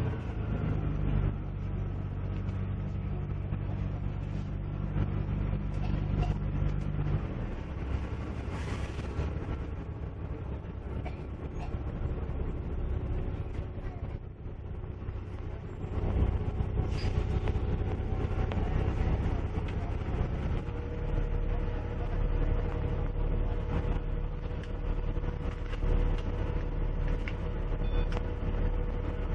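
Dennis Dragon double-decker bus's diesel engine heard from inside the cabin, running steadily as the bus drives. About eight seconds in the engine note changes and a brief hiss sounds. In the last part a steady hum runs while the bus stands at a stop.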